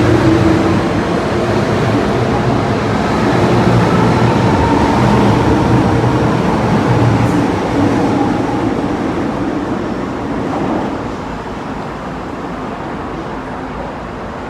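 MTR M-Train electric train running at the platform, a loud rumble with a motor hum. The sound dies down from about ten seconds in.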